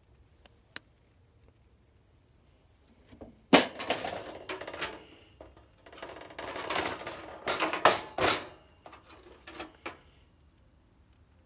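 A Coleman portable camp grill/stove being opened: a sharp snap about three and a half seconds in, then six seconds of clicking and clattering of its plastic lid and metal grates, with a few sharp clacks near the end as the lid is laid back.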